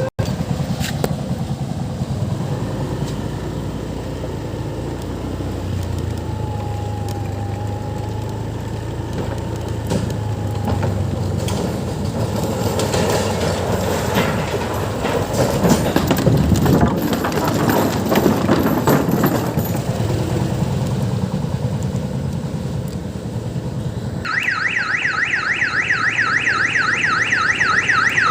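Diesel engine of an odong-odong mini tourist train running steadily, with a spell of clattering knocks through the middle. Near the end a loud electronic siren starts up, warbling rapidly.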